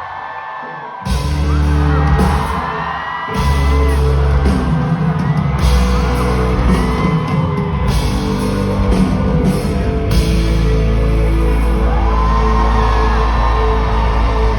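A pop-rock band playing live with a sung vocal, heard from the audience in a large hall. After a quieter first second the full band comes in with heavy bass and drums, drops back briefly around three seconds in, and returns, with whoops from the crowd.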